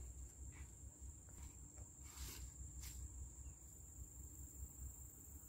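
A faint, steady, high-pitched insect trill, typical of a cricket, over a low rumble, with a couple of light knocks a little past two seconds in.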